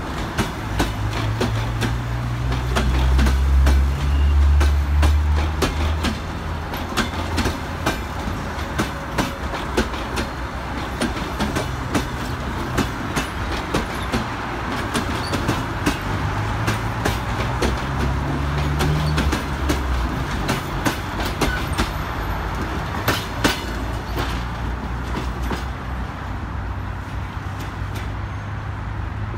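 Passenger train coaches rolling past close by, their wheels clicking steadily over rail joints and welds. A low drone swells and fades twice, once rising slightly in pitch, and near the end the train draws away.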